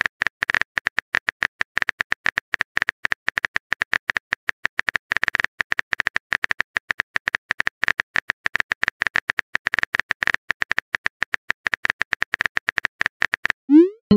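Rapid simulated smartphone keyboard tap clicks as a text message is typed, ending near the end in a short rising swoosh as the message is sent.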